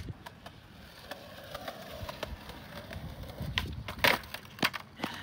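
Skateboard wheels rolling on concrete, then a quick run of sharp wooden clacks as the deck strikes the ground and steps during a trick. The loudest clack comes about four seconds in.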